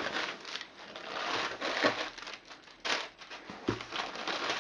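Bubble wrap crinkling and rustling in irregular bursts as hands push and shift it around a boxed game in a cardboard shipping box, with one dull knock a little over halfway through.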